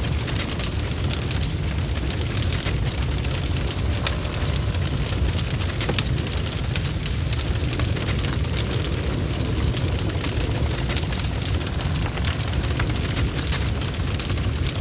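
Bonfire crackling steadily, with many small sharp pops and snaps over a constant low rumble of the flames.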